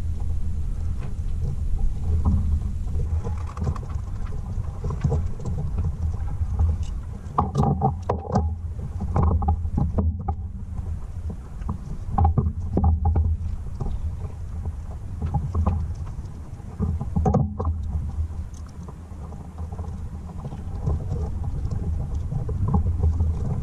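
A steady low rumble, with scattered clicks and knocks over it, grouped about a third of the way in and again once about two-thirds in.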